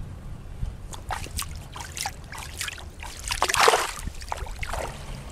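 Shallow water splashing as a released largemouth bass kicks free and swims off through the grass. It comes as a run of irregular splashes from about a second in, loudest just before four seconds.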